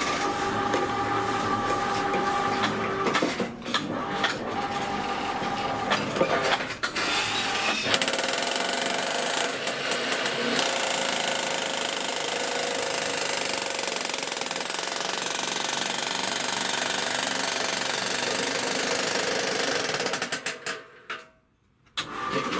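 Electric jackhammer on a homemade power shovel hammering rapidly and steadily, with a motor whine over it. It pauses briefly a couple of times, stops about 21 seconds in, and starts up again a second later.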